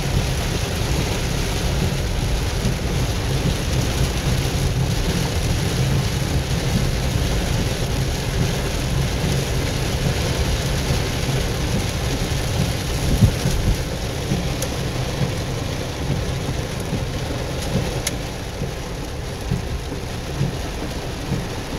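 Heavy rain pelting a car's roof and windshield, heard from inside the cabin, steady and dense over a deep low rumble, with one brief thump about 13 seconds in.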